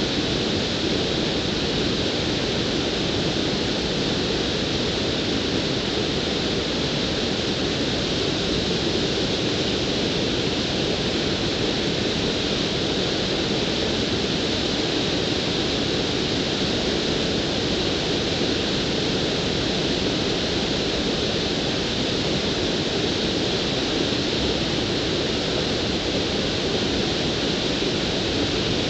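Steady rush of water spilling over a low concrete weir in a creek, an even, unchanging noise with no distinct events.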